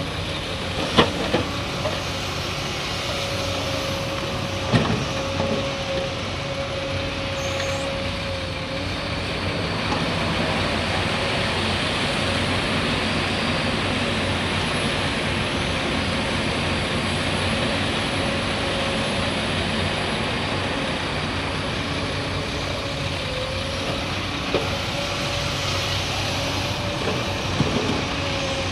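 Heavy excavator working while loading a dump truck: the diesel engine and hydraulics run steadily with a faint whine. Sharp knocks come about a second in, near five seconds, and a few more near the end.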